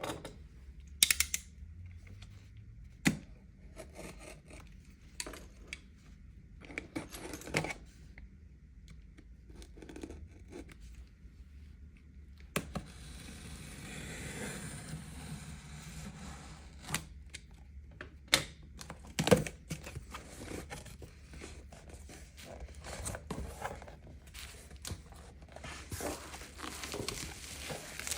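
Packaging of a skincare product being opened and handled by hand: rustling and tearing of wrapping with scattered taps and clicks as items are moved and set down, and a longer stretch of rustling around the middle. The loudest knock comes about two-thirds of the way through.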